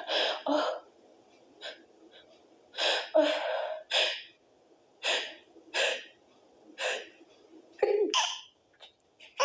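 A run of stifled sneezes with gasping breaths between them: about eight short, sharp bursts, roughly one a second.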